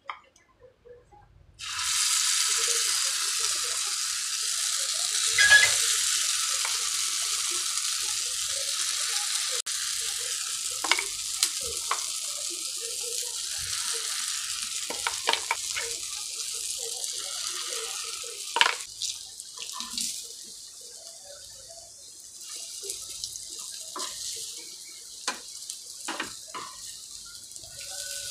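Spoonfuls of moong dal batter frying in hot oil in a shallow pan: a loud sizzle starts suddenly about two seconds in and slowly dies down, with sharp clicks of the spoon and steel spatula against the pan.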